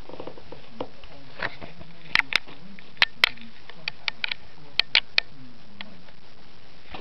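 Tissue paper crinkling and crackling as a Siamese cat paws and pushes through it, with a string of sharp crackles in the middle few seconds.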